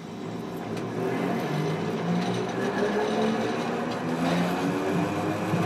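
Hiroden 700 series tram pulling away and accelerating. Its motor and gear whine climbs steadily in pitch and grows louder over the running noise.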